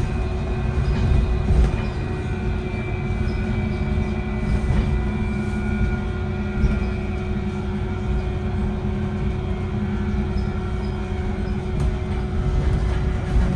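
VDL Citea SLFA-180 hybrid bus running, a steady high whine from its hybrid drive system over a low rumble, which the uploader calls a weird battery sound.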